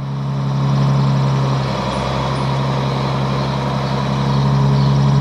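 A large vehicle's engine running steadily with a low, even hum, rising slightly in level about a second in.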